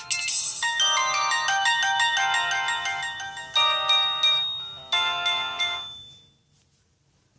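A Samsung E2121B ringtone, a synthesized melody with several notes sounding together, played through a Sony Ericsson W595 phone's loudspeaker. It fades out about six seconds in and ends, leaving near silence.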